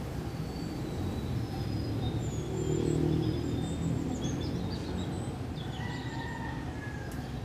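Birds chirping and whistling in short high calls over a steady low background rumble, which swells briefly about three seconds in.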